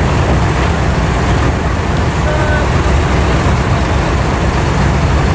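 Abra water taxi's diesel engine running steadily, a low, even rumble with a wash of noise over it.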